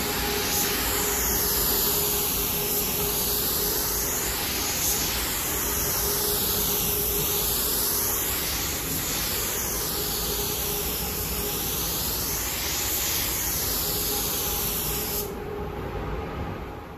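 Compressed-air paint spray gun hissing steadily while spraying white paint onto a steel cabinet. The hiss swells and sweeps in tone as the gun moves back and forth over the panel, and it drops and fades near the end.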